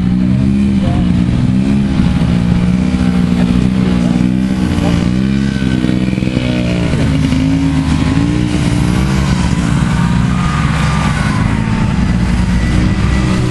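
Vintage snowmobiles' two-stroke engines running as the machines ride past one after another, the engine pitch rising and falling with the throttle. The engines run smooth and quiet.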